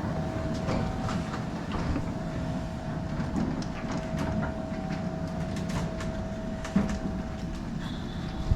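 Riding a single-speed bicycle over snowy streets, heard from a camera mounted on the bike: a steady low rumble with scattered rattles and clicks, and a steady mid-pitched hum over it.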